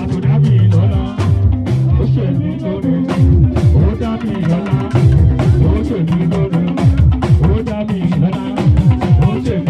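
Band music: bass guitar, guitar and a drum kit playing together, with a moving bass line and steady drum hits.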